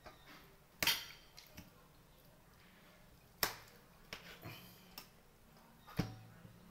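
Tableware clinking and knocking as food is taken from a stainless steel bowl by hand: three sharp knocks about a second in, midway and near the end, with lighter ticks between.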